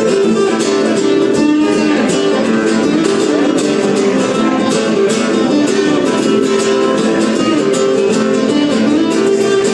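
Two acoustic guitars playing together, an instrumental passage of steady strummed and picked notes with no singing.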